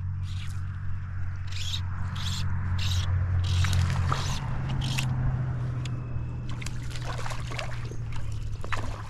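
Fly line being stripped in through the rod's guides: a series of short hissing pulls, about one every half second, over a steady low hum. Near the end a hooked trout splashes at the surface.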